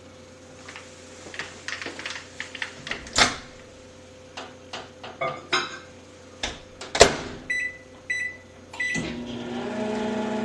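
Scattered clicks and knocks, then three short electronic beeps, then a steady hum that starts about nine seconds in.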